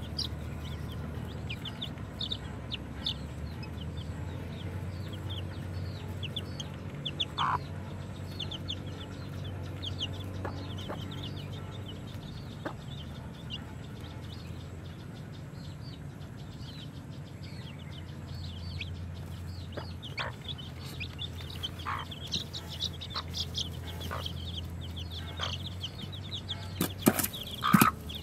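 Newly hatched chicks peeping, many short high calls in quick succession over a low steady hum, with a few louder sharp knocks near the end.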